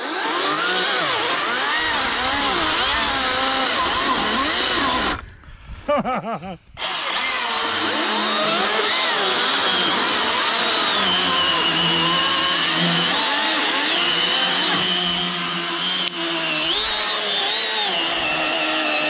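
Cordless battery-powered chainsaw cutting through a log, its motor whine rising and falling as the chain bogs in the wood. The cutting stops briefly about five seconds in, then resumes.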